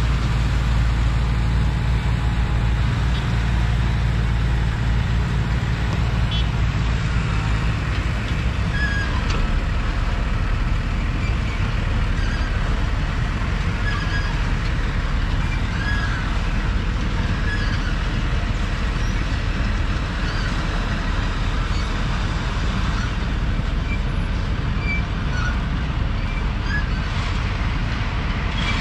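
Diesel engines of sugarcane harvesting machinery running steadily: a cane harvester loading a truck and a tractor towing a cane wagon. A low, even engine hum drops out about seven seconds in, leaving a rougher, noisier rumble.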